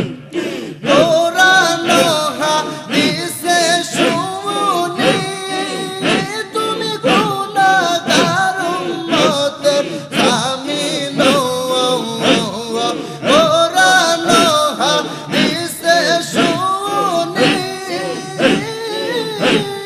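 Men's voices singing and chanting a Bengali devotional gojol and zikir melody, held notes without clear words, over a steady percussive beat.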